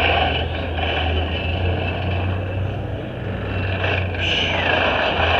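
Demolition derby car engine running, a steady low drone with a steady higher hiss over it.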